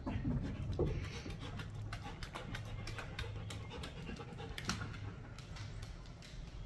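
Pit bull panting, with a quick, irregular run of short sharp clicks.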